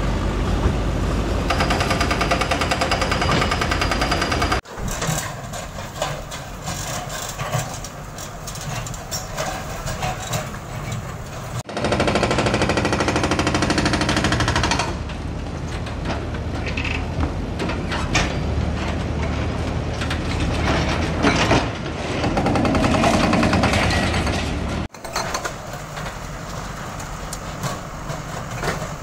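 Diesel engines of JCB backhoe loaders and tracked excavators running during the demolition of concrete buildings, with rapid clatter and knocks over the engine drone. The sound changes abruptly three times, at about five, twelve and twenty-five seconds in, as separate clips are joined.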